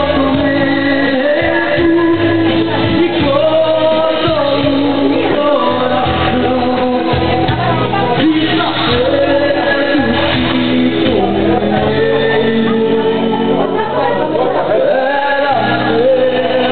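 Live amplified music: a man singing into a microphone over instrumental accompaniment with a steady bass line.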